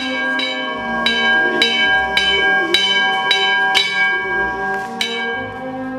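Row of hanging metal temple bells rung by hand one after another, about nine strikes at roughly two a second, each bell ringing on after it is struck. The strikes stop about five seconds in.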